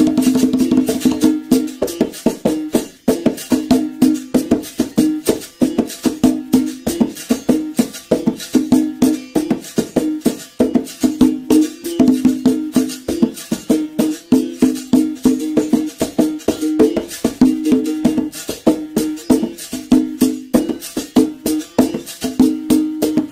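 Berimbau solo: the steel-wire musical bow struck rapidly with a stick, its pitch switching back and forth between two notes as the coin is pressed on and off the wire, with the caxixi basket rattle shaking along with the strikes.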